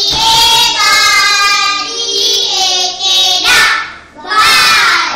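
A class of young children chanting syllables together in a drawn-out sing-song, in a few long held phrases.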